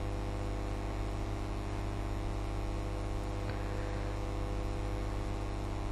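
Steady, buzzy electrical hum, strongest low down, with a faint tick about three and a half seconds in.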